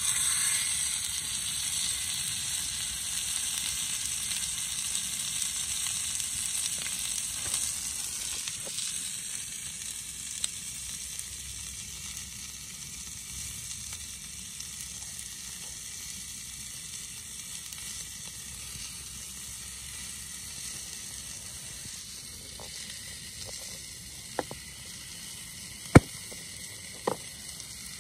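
Seasoned raw steak sizzling in a small frying pan on a portable gas camping stove. The sizzle starts suddenly as the meat goes into the pan and settles to a quieter, steady sizzle after about ten seconds. A few sharp clicks near the end, the loudest about two seconds before the end.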